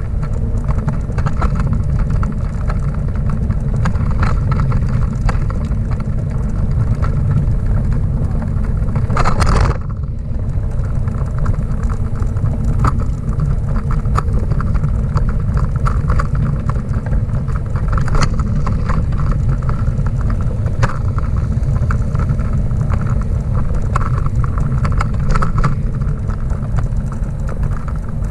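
Schwinn pet bike trailer rolling along a paved path, heard from inside: a steady low rumble with frequent light rattles and knocks as it goes over bumps. A brief louder rush about nine and a half seconds in.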